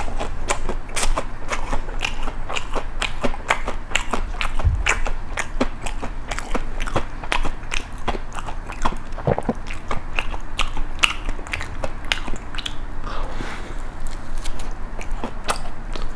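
Close-miked crunching of crisp toast spread with Nutella and nuts, being bitten and chewed, with many sharp crackles a second.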